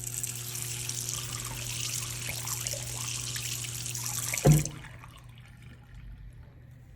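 Water running from a tap into a sink. About four and a half seconds in it cuts off with a short knock.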